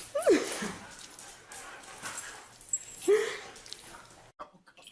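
Dog whining in excited greeting: a high whine sliding down about a quarter second in, and a shorter one about three seconds in.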